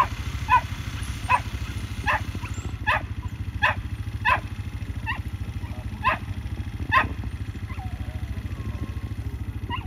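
A dog barking and yelping excitedly, about ten sharp barks at irregular intervals that thin out after about seven seconds, with one more near the end. Under it runs the steady, rapid low chugging of the lure-coursing machine's small engine.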